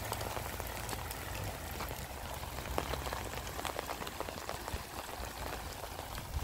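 Rain falling steadily, a dense patter of close drops over an even hiss.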